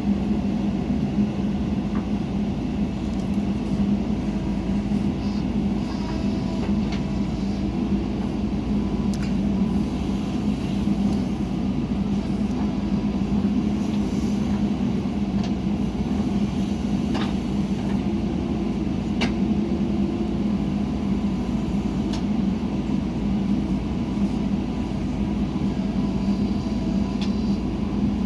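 Diesel engine of a JCB 3DX backhoe loader running steadily under load while it digs and loads mud, with a few sharp knocks scattered through.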